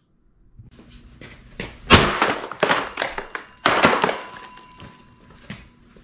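Hammer blows smashing the plastic body of an upright vacuum cleaner on a concrete floor: a series of hard knocks and clattering plastic, loudest about two seconds in and again near four seconds.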